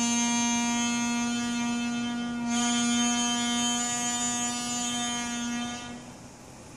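Piri, the Korean double-reed bamboo oboe, holding one long low note that swells brighter about two and a half seconds in, then dies away near the end into a short breath pause.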